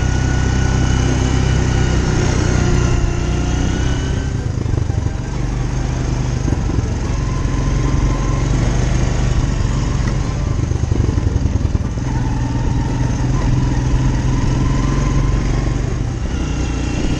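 Quad bike engine running under way at a steady pace, its pitch dropping and settling about four seconds in as the throttle eases.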